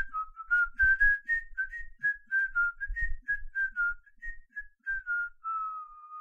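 A person whistling a quick, lively tune of short notes, about four a second, ending on one long held note.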